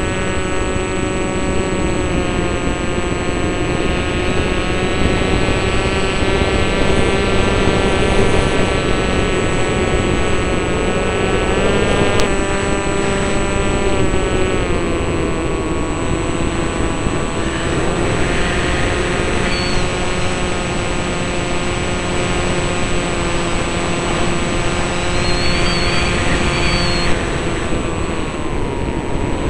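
Propeller aircraft in flight, heard from a camera mounted on it: a steady engine drone with many even overtones that dips in pitch a few times, over wind rush on the microphone.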